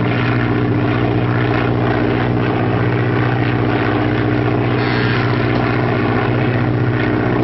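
Propeller aircraft engine droning steadily in flight.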